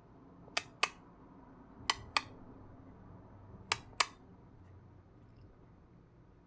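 Three pairs of short, sharp clicks, each pair about a quarter second apart, spaced over the first four seconds, over faint room background.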